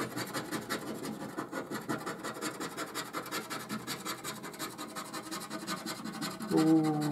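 A coin scraping the scratch-off coating of a paper scratchcard in quick, repeated strokes. A drawn-out voice comes in near the end, louder than the scratching.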